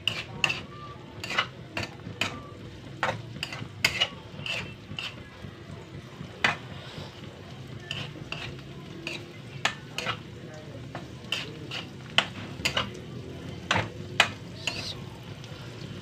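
Metal spatula stirring minced meat in a frying pan, clinking and scraping against the pan in sharp, irregular strokes about once or twice a second. Steady sizzling of the frying meat runs underneath.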